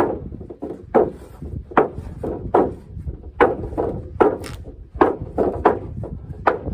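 Wooden boards knocking and clattering against a wooden table frame as they are handled and laid into place, a sharp knock about every half second to second.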